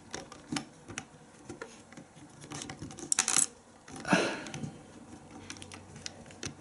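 Lego bricks being handled and pressed together: a scattered series of small hard plastic clicks and clatters, busiest about three seconds in.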